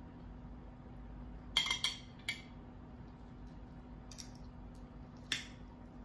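Metal spoon and fork clinking against a glass serving bowl and a plate as chicken is dished out: about five short, sharp clinks, the loudest a close pair about a second and a half in.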